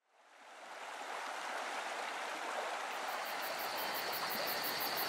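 Steady rushing noise like running water, fading in within the first second and slowly growing louder.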